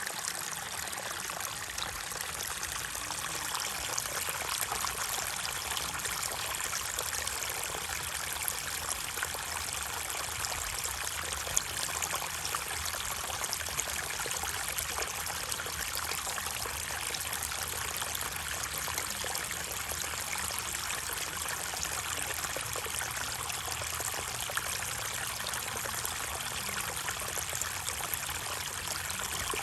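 Flowing water running steadily, the even rush of a stream or trickle.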